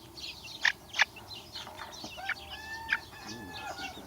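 Baby chicks peeping continuously in rapid short high-pitched calls. There are two loud sharp clicks about a second in, and a longer held call from an adult chicken in the middle.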